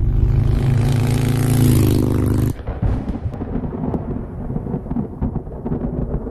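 Harley-Davidson Dyna's V-twin engine running under way, heavily buffeted by wind on the camera microphone. About two and a half seconds in the steady engine note drops away abruptly, leaving a rough, gusty wind rumble with the engine underneath.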